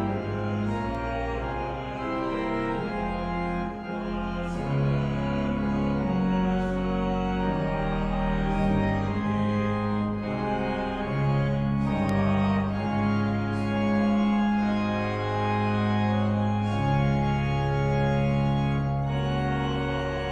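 Church organ playing slow, sustained chords, each held for a second or two before moving to the next, as offertory music during the Eucharist.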